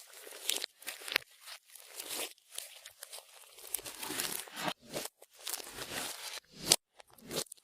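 Clear slime being squeezed and stretched by hand, giving irregular sticky crackles and pops, with one sharp louder pop about two-thirds of the way through.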